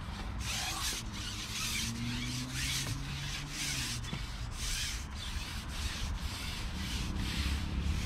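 Carbon fishing pole being fed out hand over hand, its sections sliding through the angler's hands and over his arm and leg with a rhythmic rubbing swish, about two strokes a second.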